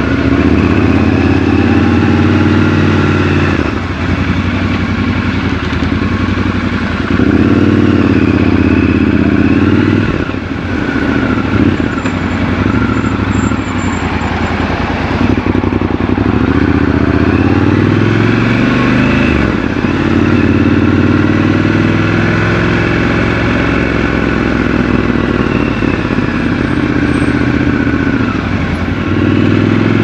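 Triumph Scrambler 1200 XC's 1200 cc parallel-twin engine running under way. The revs rise and fall several times, with the pitch climbing and dropping back.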